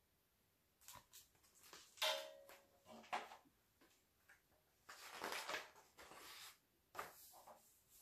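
Hardcover picture book being handled on a book stand and its page turned: scattered light knocks and taps, with a longer paper rustle from about five to six and a half seconds in.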